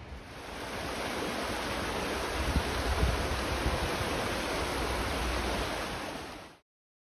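Shallow, fast-flowing river rushing steadily, cutting off suddenly near the end.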